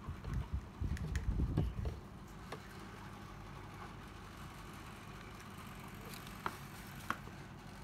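A cordless drill being handled: a cluster of light knocks in the first two seconds, then a few single sharp clicks near the end, over a faint steady hum.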